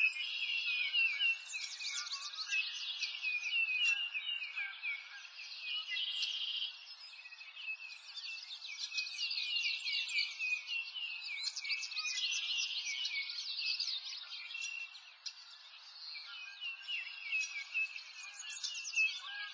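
Many songbirds chirping and singing at once: a dense, unbroken chorus of short, high, quick calls.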